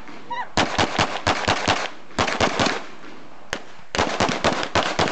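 9mm Glock pistol firing: three rapid strings of shots, each several shots close together, with short pauses between the strings and a single shot between the second and third.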